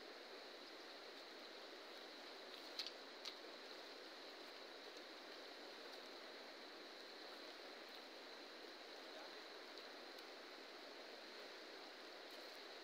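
Faint, steady rushing of a fast-flowing river, with two sharp clicks about half a second apart roughly three seconds in.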